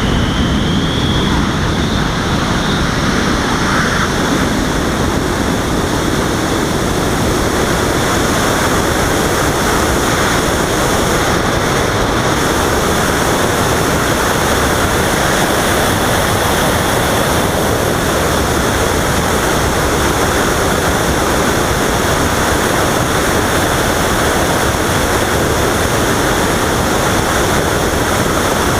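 Steady rushing wind noise on the microphone of a Robbe Arcus Sport RC glider in flight, with a faint steady high whine underneath.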